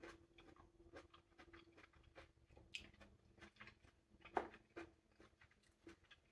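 Faint chewing and wet mouth clicks of someone eating a half-ripe plum, with one louder short mouth sound a little after four seconds in.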